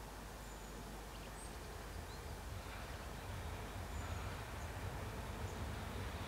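Low rumble of an approaching train, starting about a second and a half in and slowly growing louder, with a few faint bird chirps.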